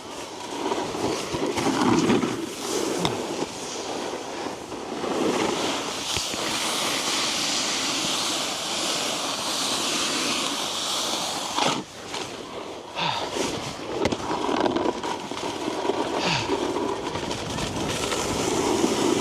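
Snowboard sliding and scraping over packed snow: a steady hiss from the base and edges, with a few sharp knocks along the way.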